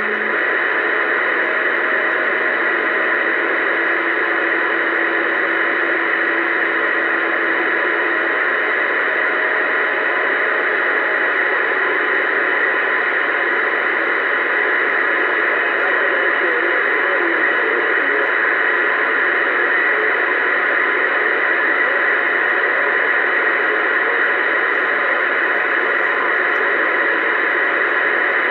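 Uniden Bearcat CB radio receiving on channel 19 AM, its speaker giving out a steady hiss of static. A few faint steady whistle tones sound under the static during the first several seconds.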